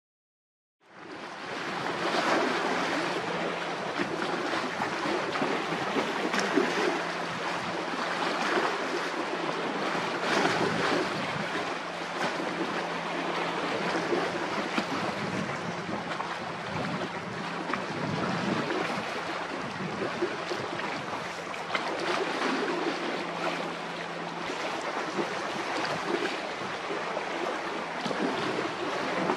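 Strong wind buffeting the microphone over the rush of wind-driven waves breaking into whitecaps, starting abruptly about a second in and rising and falling in gusts. A faint steady low hum runs underneath.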